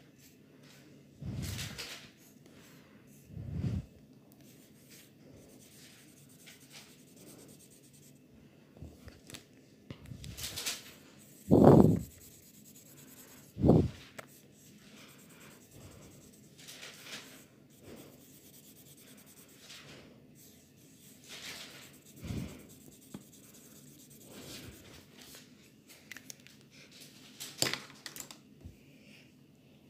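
Pen scratching across sketchbook paper in short, separate drawing strokes, with a few dull knocks in between, the loudest about twelve and fourteen seconds in.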